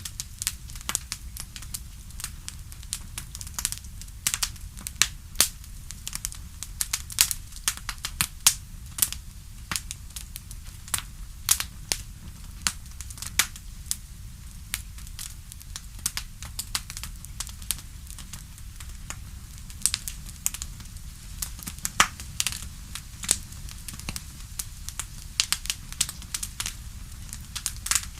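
Wood fire crackling: frequent irregular sharp pops and snaps over a low steady rumble.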